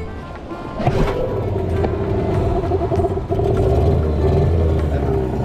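Hangkai 15 hp outboard motor opened up from idle about a second in, the level jumping, then running steadily at higher revs.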